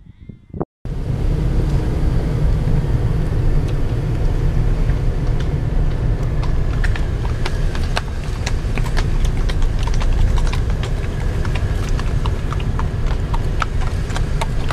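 Low rumble of a slow-moving car heard from inside the cabin, with the clip-clop of a ridden horse's hooves walking alongside. The rumble starts abruptly just under a second in, and the hoof clicks come more often from about five seconds in.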